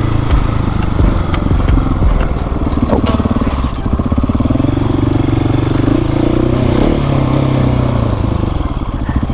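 Husqvarna 701 single-cylinder motorcycle engine running under way, with wind noise over it; the engine note climbs from about three seconds in and drops back near eight seconds.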